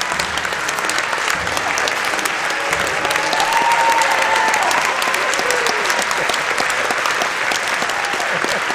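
Theatre audience applauding: many hands clapping together, steady throughout.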